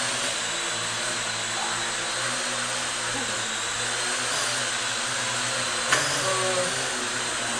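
Parrot AR.Drone 2.0 quadcopter hovering, its four motor-driven rotors giving a steady high whir with several held tones. A single sharp knock comes about six seconds in.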